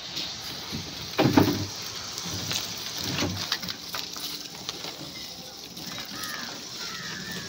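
Gloved hands scooping and turning small fish in a heap of crushed ice: wet crunching and clattering of ice and fish, loudest a little over a second in.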